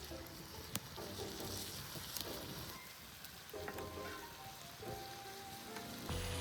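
Pork sizzling in a small frying pan over a wood campfire, with an occasional sharp pop, under soft background music.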